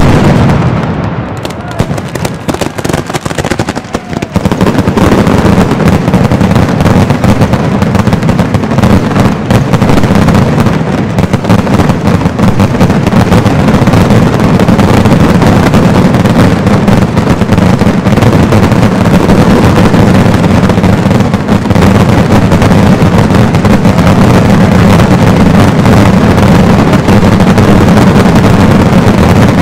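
Mascletà barrage of salute shells exploding in a very loud, continuous roll of bangs. It thins briefly in the first few seconds, then closes back into an unbroken wall of blasts.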